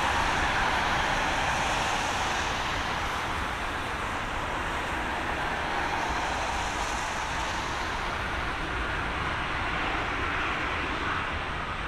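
Airbus A350-900's Rolls-Royce Trent XWB jet engines making a steady rushing noise as the airliner rolls out after landing on a wet runway, slowly easing as it decelerates.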